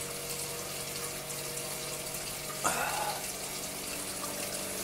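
Steady trickle of running water with a low steady hum under it, and one brief sharp clack a little over halfway through.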